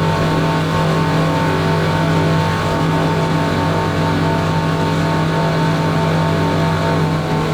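Yamaha V8 outboard boat engines running at high speed, wide open throttle, with a steady, even engine note and no change in pitch.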